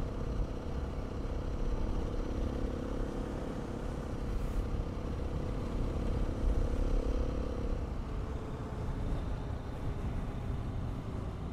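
A 2019 Beta 500 RR-S dual-sport motorcycle's single-cylinder four-stroke engine running at a steady cruise while riding, its note shifting slightly about eight seconds in.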